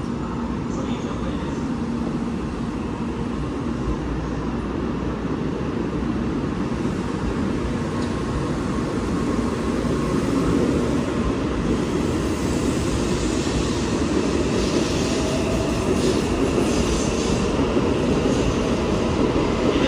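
N700A Shinkansen trainset pulling out and accelerating alongside the platform: a steady rumble of wheels and running gear that grows gradually louder as it picks up speed, with faint steady whine tones coming in about halfway through.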